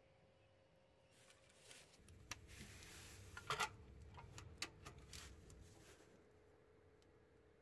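A socket ratchet tightening a starter mounting bolt: faint ratchet clicks and rustling that start about a second in and stop about six seconds in, with the loudest cluster of clicks near the middle.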